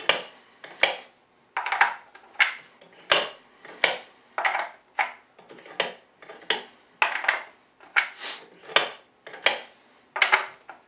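Brass .50 Action Express cartridge cases clinking against a bench-mounted powder measure and the loading trays as powder charges are thrown into them one after another: a quick run of sharp metallic clicks and clinks, about one or two a second.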